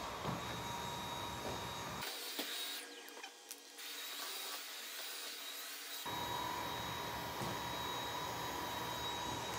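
Dyson cordless stick vacuum running with a steady whine. For a few seconds in the middle the sound turns thinner and quieter before the full motor sound returns.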